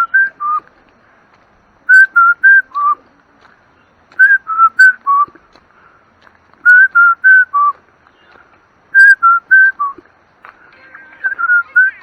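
A clear, loud whistled phrase of four notes, high, slightly lower, high, then lowest, repeated four times about every two and a half seconds.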